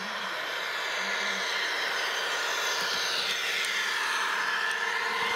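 H0-scale model train running on the layout's track, its running noise growing steadily louder as it approaches, with a whine that falls in pitch during the second half.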